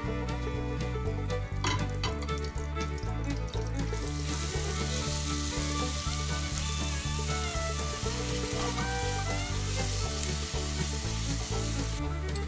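Diced onion sizzling as it fries in hot fat in a stainless steel pot. The sizzle swells about four seconds in and cuts off near the end.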